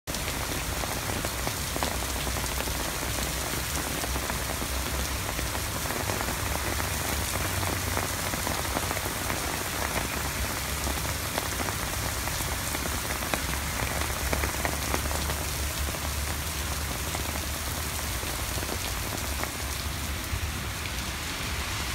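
Heavy rain pouring onto a paved street and pavement: a steady, dense hiss with many small, sharp drop hits, over a low rumble.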